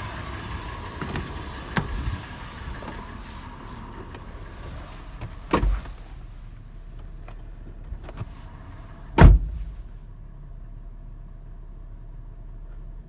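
Toyota FJ engine running at idle, broken by several sharp thumps, the loudest about nine seconds in. After about ten seconds the sound turns duller and quieter, with only a low hum left.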